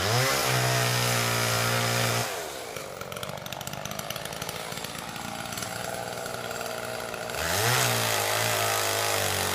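Chainsaw revved up to full throttle, held steady for about two seconds, then dropped back to a lower idle before revving up and holding again near the end.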